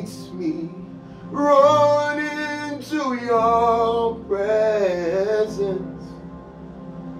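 A man sings slow, drawn-out worship phrases with gliding, bending pitch over sustained electronic keyboard chords. There are a few long phrases with short breaks between them.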